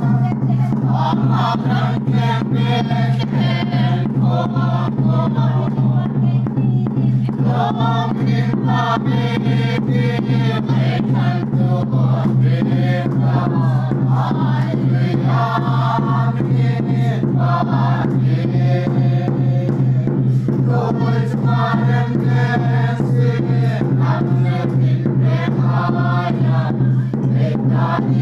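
A small congregation singing a hymn together in unison, men's, women's and children's voices mixed, with a drum beating steadily underneath.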